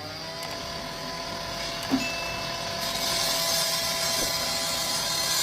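A machine running steadily, with a steady whine and a hiss that grows brighter about three seconds in, and a faint click about two seconds in.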